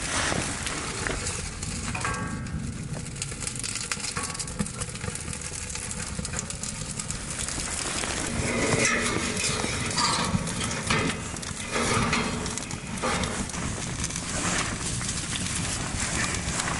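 Newly lit kindling fire crackling in a small steel wood stove, with irregular snaps, clicks and knocks as twigs are broken and fed in through the open door.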